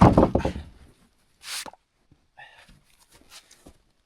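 A man breathing out heavily, loudest at the start and fading over about a second, then a short hissing breath about a second and a half in, followed by faint small rustles and movements.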